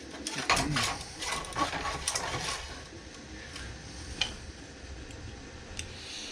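Small plastic clicks and rattles of 3D printer filament being handled and pushed into a 3D-printed splicing jig, with a sharper click about four seconds in.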